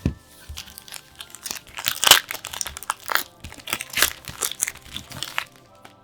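Plastic and foil trading-card packaging crinkling and crunching as it is handled and opened: a dense run of sharp crackles, loudest about two seconds in, that stops shortly before the end.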